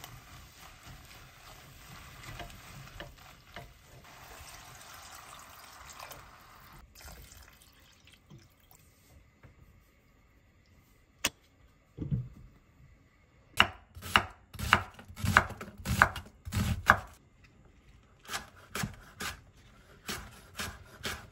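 Water running steadily for several seconds, then a kitchen knife chopping on a cutting board in two runs of quick, uneven strokes in the second half, each stroke a sharp knock with a dull thud.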